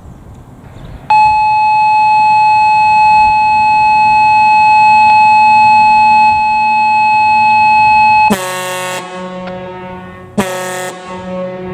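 Gamewell diaphone fire-alarm horn sounding the noon test blast: one steady, loud horn tone about seven seconds long, starting about a second in and stopping abruptly. After it, lower, fading tones are heard along with two short bursts of hiss.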